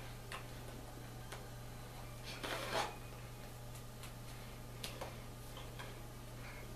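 Soft, irregular clicks and a brief rustle about two and a half seconds in from hands and sweater sleeves moving while signing, over a steady low electrical hum.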